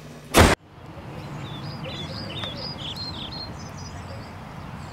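A short, very loud burst of noise in the first half second, cut off sharply. Then small birds chirping in a run of short, quick high notes for a couple of seconds over a steady low rumble.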